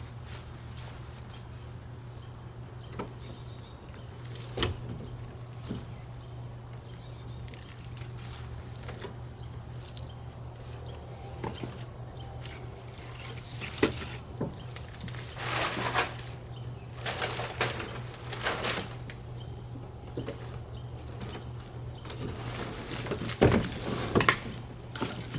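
A small wooden train car on pneumatic wagon wheels being handled and pulled by hand over grass and dry leaves: scattered knocks and clicks, then louder bursts of rustling and rattling in the second half, with footsteps.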